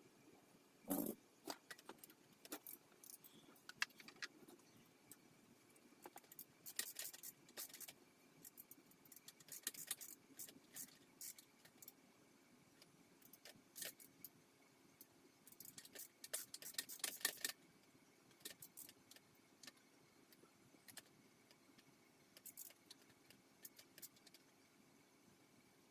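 Faint, scattered metallic clinks and jingling rattles of hand tools and metal parts being handled, with a thump about a second in and a busier spell of rattling about two-thirds of the way through.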